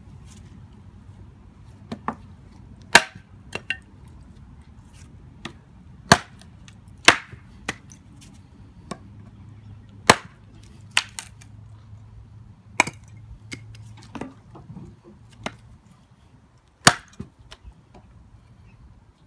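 A homemade competition-style chopper with a blade of 5 mm high-carbon steel chopping sticks and branches on a half-rotten wooden chopping block. About fifteen sharp, irregularly spaced chops, the hardest ones a few seconds apart.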